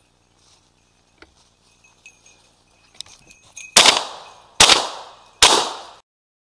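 Three shotgun shots fired in quick succession, a little under a second apart, at a flushed woodcock. Faint rustling and twig snaps in the cover come before them.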